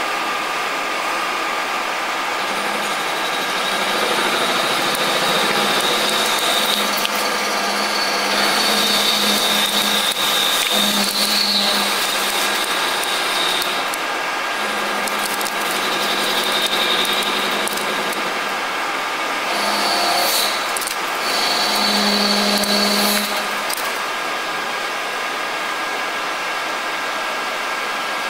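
CNC lathe machining a spinning crankshaft: a steady mechanical whir, with a low hum and a high whine that come and go as the cut proceeds, loudest twice in the middle.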